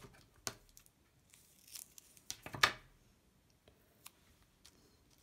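Scissors and crafting paper handled at a table: a few short, sharp snips and clicks with brief rustling, the loudest about two and a half seconds in.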